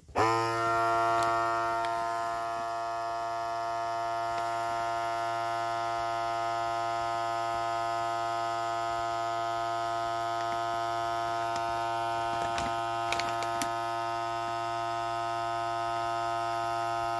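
Vacuum sealer's pump motor starting up and running with a steady buzzing hum, loudest in its first second. The bag stays loose around the pistol, so the air is not being drawn out well. A few faint clicks come near the end.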